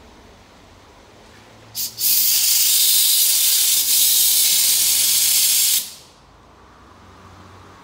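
Compressed-air blow gun blasting air through a windshield-washer hose to clear it of mineral scale: a short puff about two seconds in, then a loud, steady hiss for nearly four seconds that cuts off suddenly.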